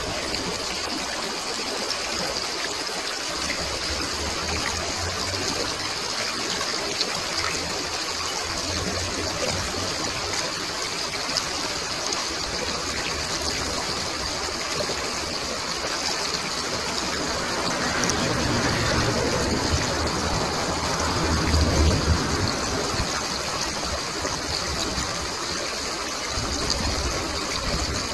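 Water flowing steadily in a stream, a continuous rushing trickle. Low rumbles come and go underneath, strongest about three-quarters of the way through.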